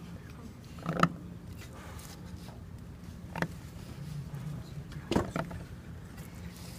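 A steel seal-carving knife cutting into a soft seal stone held in a wooden vise: short, sharp scraping cuts, the loudest about a second in, at about three and a half seconds and just past five seconds, with fainter scratches between. This knife sound is what the carver says is best to hear while cutting.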